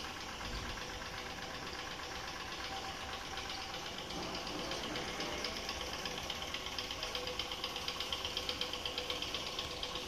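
A motor or engine running steadily, with a fast, regular ticking that grows louder over the second half.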